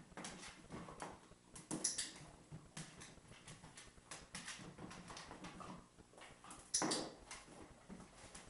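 A pet playing with a squeaky rubber duck and a basket during clicker training: scattered light clicks, knocks and scrabbling, with two louder sounds about two seconds in and about seven seconds in.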